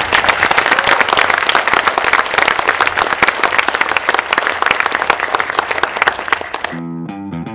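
A large audience applauding with dense, steady clapping. It cuts off abruptly near the end, and music with a plucked, stepping bass line starts.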